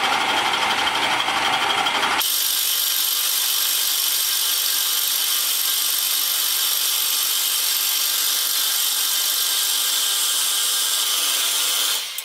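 Milling machine running with its cutter taking a cut in metal. About two seconds in the sound changes abruptly, losing its low rumble and leaving a steady hum with a high hiss, and it cuts off near the end.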